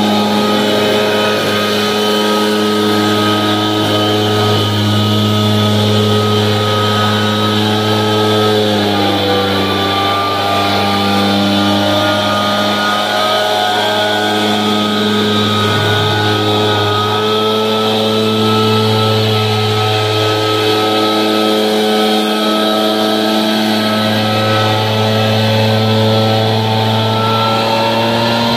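Echo leaf blower running steadily at high throttle, blowing air. Its engine pitch dips briefly about nine seconds in, then recovers.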